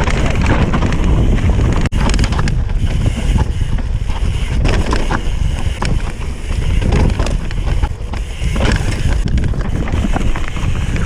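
Wind buffeting the microphone over the constant rumble and rattle of a mountain bike descending a loose, rocky trail, with short knocks from the tyres and frame hitting stones. The sound drops out for an instant about two seconds in.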